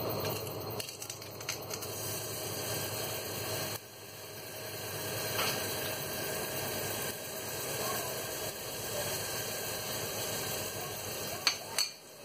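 Crushed garlic sizzling in hot oil in a stainless steel pot, with a silicone spatula scraping it in and stirring. Two sharp taps against the pot near the end.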